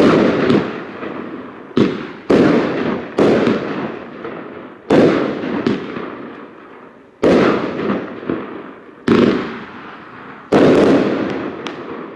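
Funke 'Valentin' 25-shot fireworks battery firing: about ten sharp bangs at uneven gaps of half a second to two seconds, each followed by a fading crackle.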